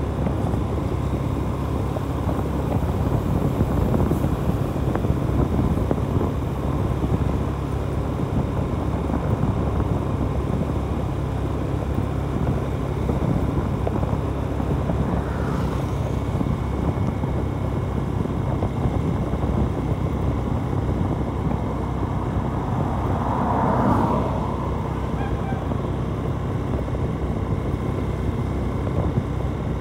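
Motorcycle running steadily at road speed, heard from the rider's seat as engine hum mixed with wind and road noise. A short louder sound, like a horn, stands out about two-thirds of the way through.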